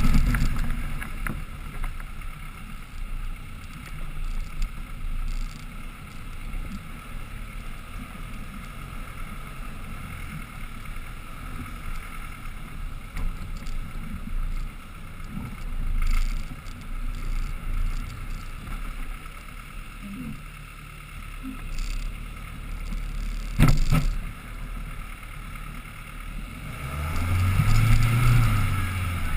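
Land Rover Defender 110 crawling off-road, its engine running low under a steady rumble. Knocks and bumps from the vehicle come through, with one sharp knock about three quarters of the way in. Near the end the engine revs up and settles back. It is heard from a camera mounted on the roof.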